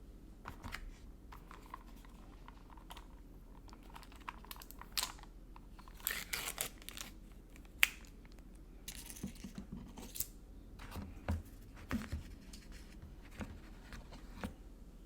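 Takeout food packaging being handled: scattered crinkles, tearing and sharp clicks of paper, plastic and cardboard, with a few dull knocks about eleven to twelve seconds in.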